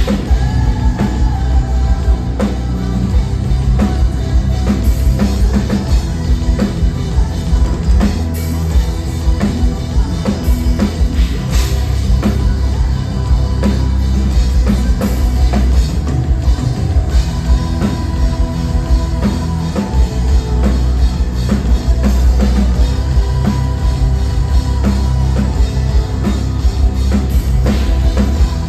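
Live heavy rock band playing loud through a club PA, with a pounding drum kit and kick drum under distorted guitars and bass, recorded from the crowd.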